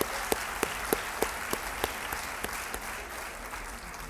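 Audience applauding, with one person's claps standing out sharply at about three a second; the applause dies away near the end.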